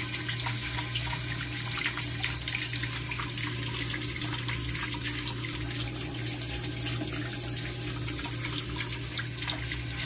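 Steady rush of running water, with a low steady hum underneath and faint ticks scattered through it.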